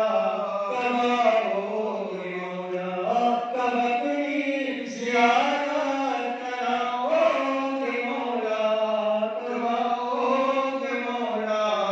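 Men's voices chanting an Urdu munajat, a devotional supplication, in a slow melodic recitation with long held notes that glide up and down in pitch.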